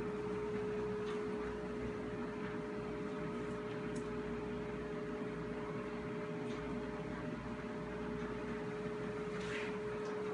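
Steady electrical hum of a running household appliance: one clear steady tone over a soft rushing noise, with a few faint light taps.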